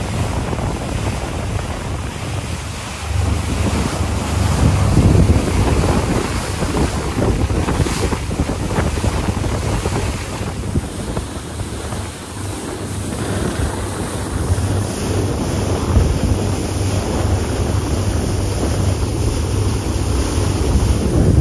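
Wind buffeting the microphone and water rushing in the wake of a charter fishing boat under way, over a steady low hum from the boat.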